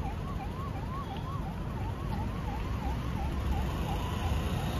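Distant siren of a motorcade vehicle in a fast yelp, its pitch rising and falling about three times a second and growing fainter after about two seconds, over a low rumble of traffic.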